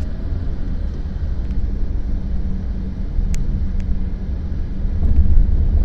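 Low, steady rumble of a car's engine and tyres heard from inside the moving car's cabin, growing a little louder about five seconds in.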